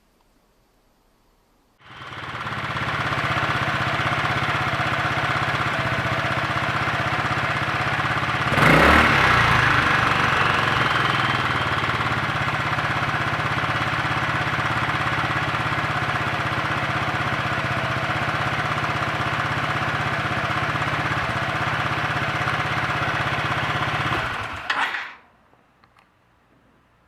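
Honda Freeway MF03 scooter's single-cylinder four-stroke engine starting and idling steadily, with one short rev about seven seconds after it starts, then shut off near the end.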